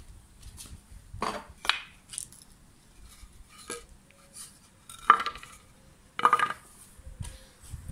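Short pieces of pallet wood set down one by one on a hard surface: several sharp wooden knocks and clatters, the loudest about five seconds in.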